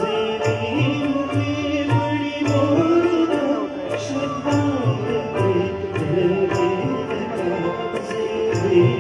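Marathi light-music song accompaniment: harmonium and other melody instruments playing sustained notes over a steady tabla beat, about two strokes a second.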